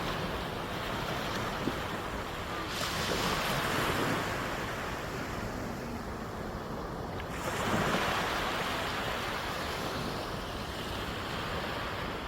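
Calm sea waves washing onto a sand beach, with two gentle swells as waves break, about three and eight seconds in.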